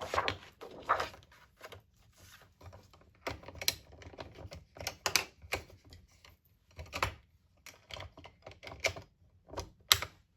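Sheets of cardstock being handled and lined up on a paper trimmer for cutting: irregular taps, clicks and short paper rustles.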